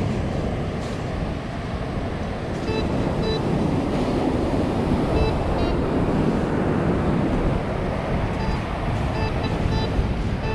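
Steady wind and surf noise, with short clusters of electronic beeps from a metal detector about three seconds in, around five seconds, and repeatedly in the last few seconds, signalling a metal target.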